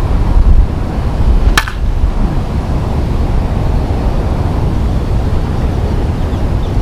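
Wind buffeting the microphone, with one sharp crack about a second and a half in: a Dudley Lightning Bobby Nifong one-piece senior softball bat striking a softball.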